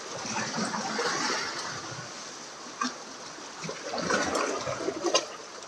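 Choppy sea waves splashing and washing against the shore in strong wind, swelling twice, with two short clicks.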